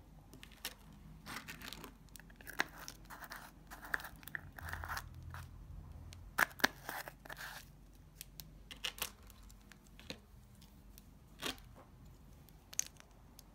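Hands handling small plastic items on a tabletop: scattered clicks, taps and brief rustling and scraping, busiest in the first half and thinning to a few isolated clicks near the end.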